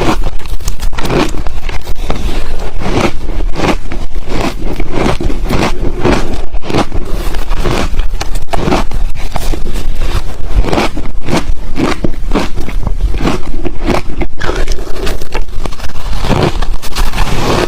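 Ice being bitten and chewed close to the microphone: a dense, irregular run of crisp crunches.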